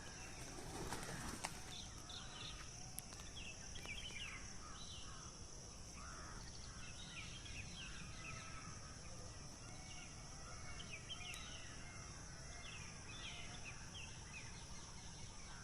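Outdoor ambience of many small birds chirping in short repeated notes over a steady high-pitched hiss and a low rumble, with a sharp click about a second and a half in.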